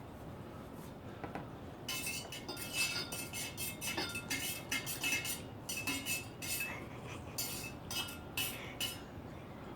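Metal utensils clinking and scraping against a dish in an irregular run of ringing strokes, starting about two seconds in and stopping near the end.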